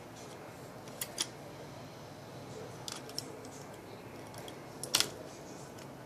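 Sharp metallic clicks and snaps from the parts of a scoped bolt-action rifle being handled and fitted by hand: a pair about a second in, a few around three seconds, and the loudest pair about five seconds in.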